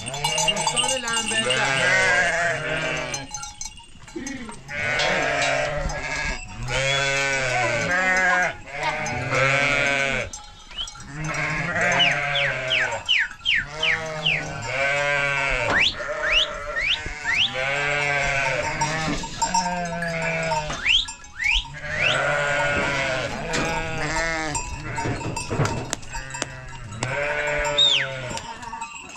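A flock of sheep and goats bleating continually, many overlapping calls with hardly a break.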